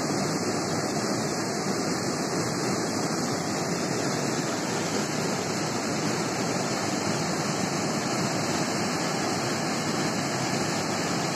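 Steady rushing of a fast-flowing, swollen river, with white water tumbling over a small cascade just upstream.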